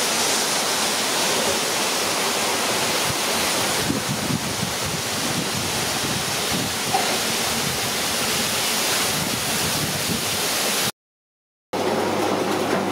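Hot oil in a brass kadai sizzling steadily as handfuls of pakoda batter deep-fry. The sound cuts out briefly near the end.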